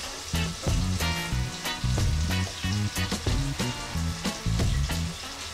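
Seasoning vegetables frying and sizzling in a pot while a spatula stirs them, under background music with a bass line and a steady beat.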